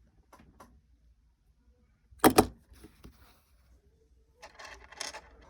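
Plastic Lego bricks clicking as they are pressed into place on a model: a few faint clicks, a loud double click a little over two seconds in, and a rattle of small clicks near the end.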